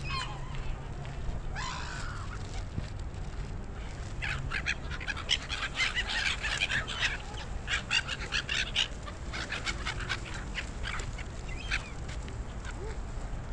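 A flock of gulls calling: a few cries near the start, then a dense run of many short calls from about four to nine seconds in, thinning out toward the end.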